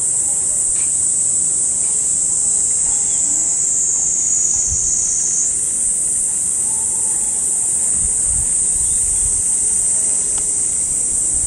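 A dense, steady, high-pitched insect chorus shrilling without a break. It dips slightly in pitch between about four and five and a half seconds in, then snaps back up.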